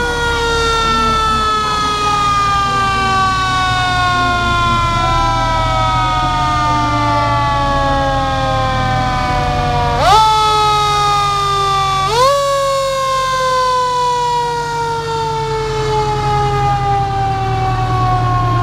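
Fire engine siren winding slowly down in pitch, jumping quickly back up twice about ten and twelve seconds in, then winding down again. The fire trucks' engines run low underneath.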